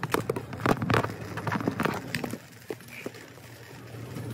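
Metal wire shopping cart clattering and rattling as it is pushed, a quick irregular run of knocks that dies down after about two and a half seconds.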